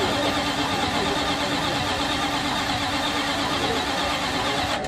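Starter cranking the supercharged engine of a Willys gasser drag car, a steady mechanical whir that holds an even pitch without the engine firing, then cuts off suddenly near the end.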